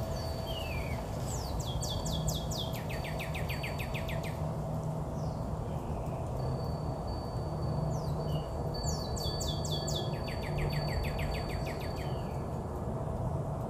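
A songbird singing two trilled phrases of rapid downward-sweeping notes, each about three seconds long, the second starting about eight seconds after the first, over steady low background noise.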